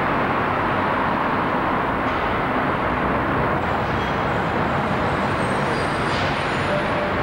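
Double-decker buses' engines running in a covered bus station, a steady, unbroken noise.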